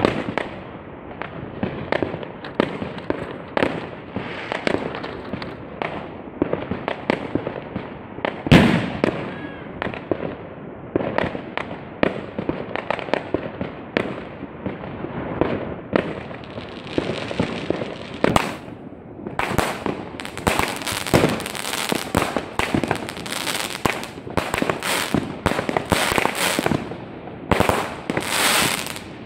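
Aerial fireworks going off in a continuous run of bangs and pops, the loudest single bang about eight seconds in. From about two-thirds of the way through, the pops come thicker and sharper.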